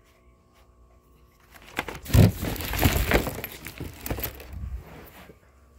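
Plastic clattering, knocking and rubbing as the vacuum's floor head and brush roller are handled and turned over, with a heavy thump about two seconds in; the noise dies away after about five seconds.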